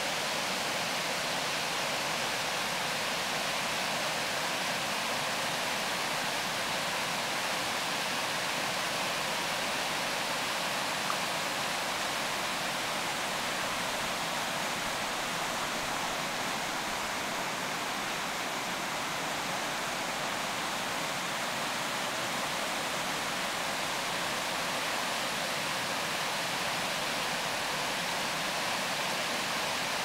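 Small waterfall cascading over rock ledges: a steady rush of falling water.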